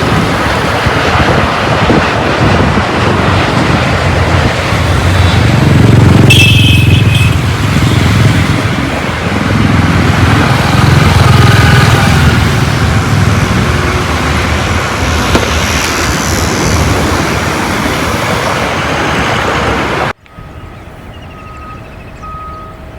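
Boeing 787-8 landing: a loud, steady jet roar with a deep rumble that swells in the middle. It cuts off suddenly about 20 seconds in to a quieter stretch with a faint beep repeating several times.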